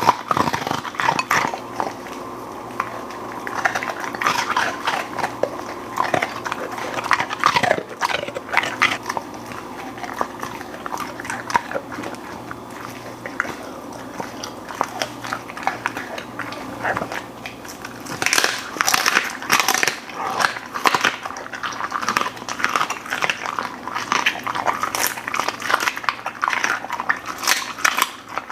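Golden retriever eating, biting and crunching through its food with wet, irregular chewing.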